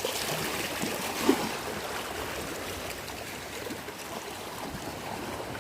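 Small sea waves washing on a beach, a steady rush of water, with one short sharp sound about a second in.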